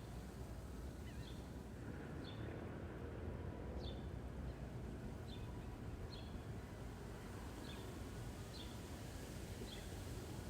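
Backyard ambience: a bird repeating a short, high chirp about once a second over a steady low background rumble.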